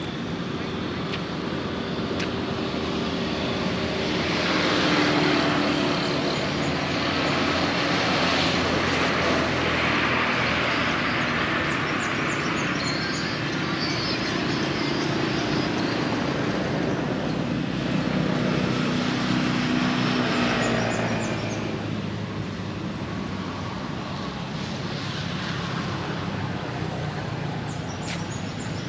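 Motor traffic passing, a wide rushing noise that swells and fades several times over a steady low hum. A few faint high bird chirps can be heard now and then.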